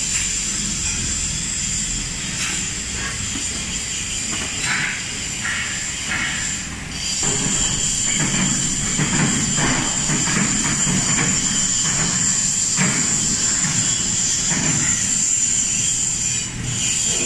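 Workshop floor noise: a steady high-pitched hiss throughout, with scattered knocks and clatter from about seven seconds in.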